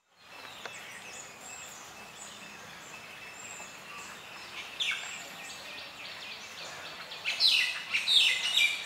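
Birds chirping and calling over a steady outdoor background, with louder bursts of quick falling calls about five seconds in and again near the end.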